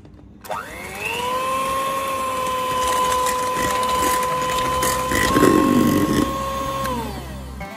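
Electric hand mixer switched on, its motor whine rising to a steady high pitch as the twin beaters whip egg whites with sugar in a stainless steel bowl. There is a brief louder rattle about five and a half seconds in, then the whine falls away as the mixer is switched off near the end.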